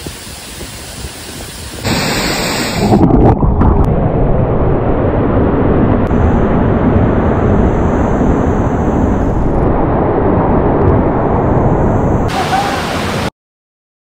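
Tall monsoon-fed waterfall pouring into its pool, a loud, dense rushing noise. It steps up in level about two seconds in and again a second later, holds steady, and cuts off abruptly near the end.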